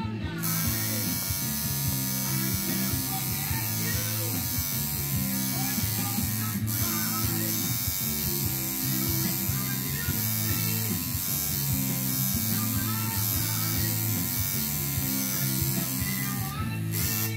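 Electric tattoo machine buzzing steadily while lining a tattoo into skin, with music playing in the background.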